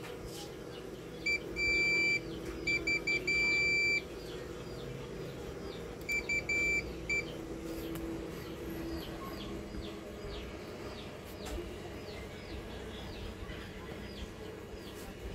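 Multimeter continuity beeper sounding as the probes touch the laptop motherboard: a beep of about a second, a quick run of short beeps and a longer beep, then a few more short beeps about six to seven seconds in. The beeping means continuity to ground, a sign that the 19 V rail is shorted.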